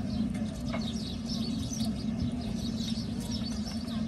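Birds chirping, many short calls in quick succession, over a steady low hum.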